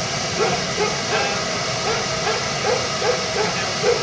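A dog barking repeatedly, short barks about twice a second, over the steady hiss of a steam locomotive standing in steam.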